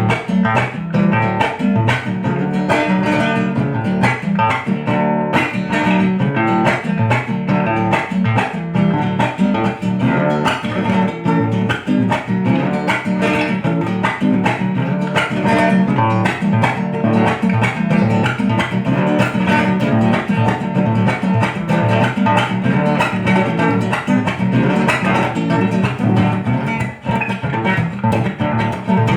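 Acoustic guitar (violão) picked in a continuous run of notes in quick succession, set up to imitate the sound of a Brazilian viola caipira.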